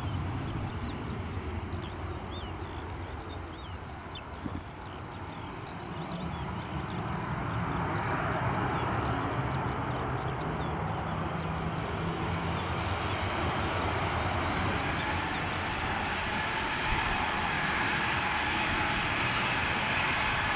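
Boeing 737-800's CFM56-7B turbofan engines running as the jet taxis: a steady jet whine and rumble that grows louder about a third of the way in, with a thin high whine joining later.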